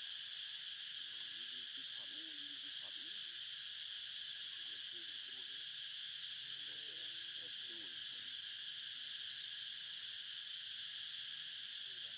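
A steady, high-pitched drone of forest insects, unbroken throughout.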